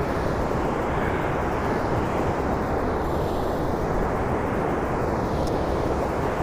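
Water rushing through the gates of a river dam: a steady, even noise with no change.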